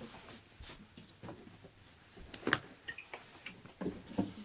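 A few scattered light knocks and clicks of things being handled in a small room, the sharpest about two and a half seconds in.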